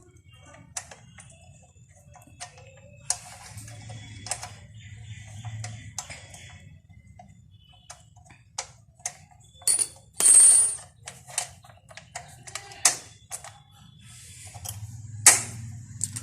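Metal hand tools clicking, clinking and scraping against a motorcycle's rear disc brake caliper as it is taken apart, in scattered irregular knocks. The loudest is a ringing metal clink about ten seconds in, with another sharp one about fifteen seconds in.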